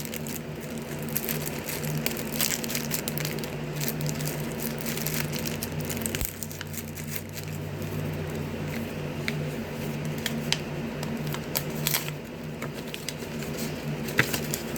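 Plastic packaging crinkling, with scattered small clicks, as a scented bracelet package is opened and handled by hand, over a steady low hum.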